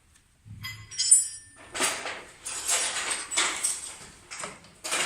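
Metal hand tools and sockets clinking and rattling as someone rummages through a socket set: one ringing metallic clink about a second in, then a run of rough scraping and clattering every third to half second.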